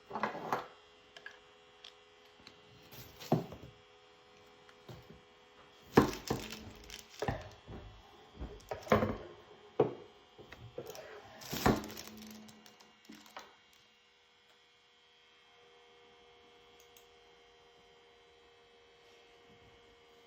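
Handling noise: a series of knocks, taps and clatters of objects being set down and handled, stopping about 14 seconds in, after which only a faint steady electrical hum remains.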